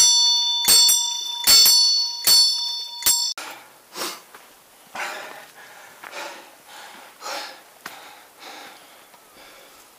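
A small bell struck over and over, about once every 0.8 seconds, its ringing tones cutting off abruptly about three seconds in. Then a run of softer rough noises, about one a second, fading away.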